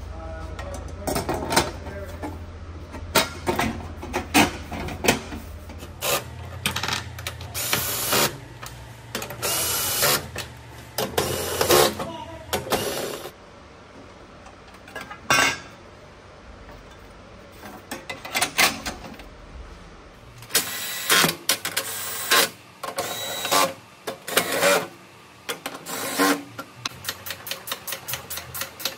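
Clanks and knocks of the hybrid battery's sheet-metal case parts being handled and fitted, with bursts of quick ratchet-wrench clicking as the 10 mm nuts are run down, including one long run of rapid clicks near the end.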